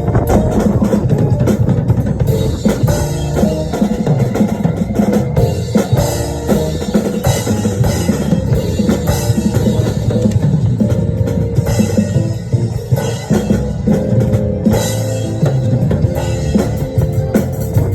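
Drum kit played continuously, bass drum and snare strikes in quick succession, over music with sustained pitched notes.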